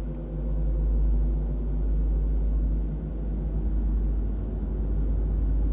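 Deep, steady rumble with a low droning hum, heavy in the bass.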